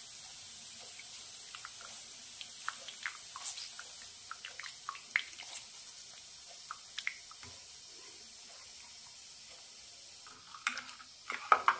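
Coconut milk dripping and splashing through a steel mesh strainer as wet ground coconut is squeezed by hand: scattered small drips that thin out after about seven seconds. A few louder knocks come near the end.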